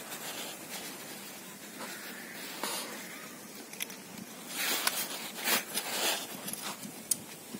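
Small hand trowel scraping and scratching dry, stony soil in several short strokes, densest in the second half, with a couple of small stones clicking.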